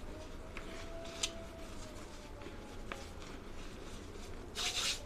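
Hands pressing and crumbling dry grey powder and its clumps: scattered faint crackles, a sharp click just over a second in, and a louder crunching crumble near the end.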